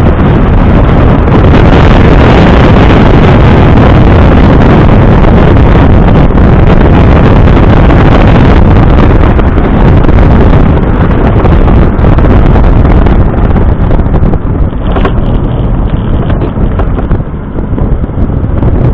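Heavy wind buffeting on the microphone while a Smart Roadster drives at speed, with road and engine noise beneath it. The buffeting eases off over the last few seconds.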